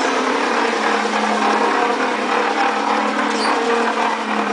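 Electric motor of a child's battery-powered ride-on toy car running, a steady hum that holds one pitch.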